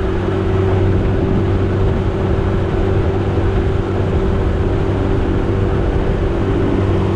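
Small tiller outboard motor running steadily at cruising speed, pushing an aluminium jon boat along under way.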